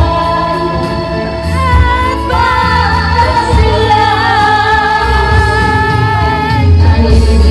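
A woman singing karaoke into a microphone, her voice amplified through loudspeakers over a music backing track with a steady bass line. She holds some notes long with a wavering vibrato.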